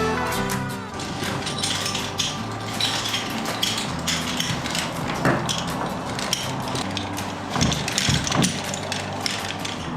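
Hand tools at work: a busy run of irregular clicks, taps and scrapes, with a few heavier knocks near the end.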